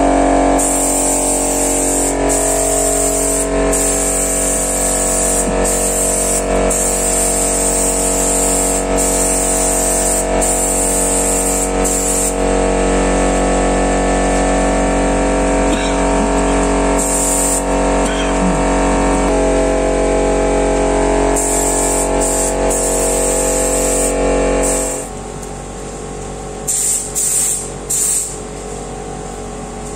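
Air compressor running with a steady hum while a spray gun spraying truck bed liner coating hisses in on-off bursts. About 25 s in, the compressor hum stops, and the gun keeps hissing in a few short bursts.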